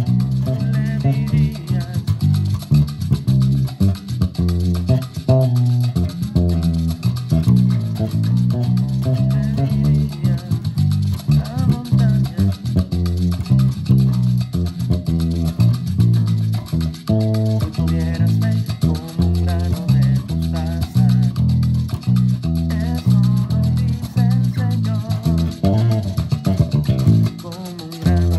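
Six-string electric bass played fingerstyle: a busy bass line of quick, plucked low notes that change pitch rapidly.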